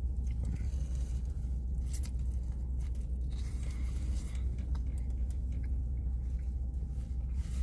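A person chewing a mouthful of brisket sandwich, with faint small clicks and smacks over a steady low rumble.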